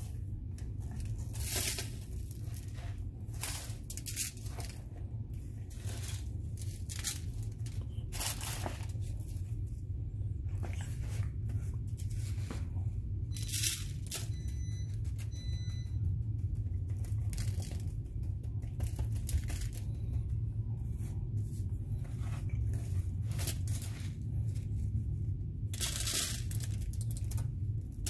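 Aluminum foil crinkling and crackling in irregular bursts as a hand presses a fish into a crumb coating spread on it, over a steady low hum.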